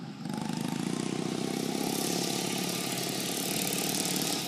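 Straight-piped riding-mower racing engine exhausting through two car mufflers, running under way with a steady drone that picks up about a quarter second in.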